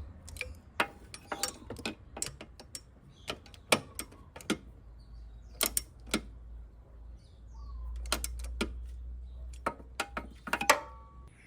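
Irregular sharp metallic clicks and clinks of hand tools and small parts being handled, about two dozen in all, with a low hum swelling up in the middle.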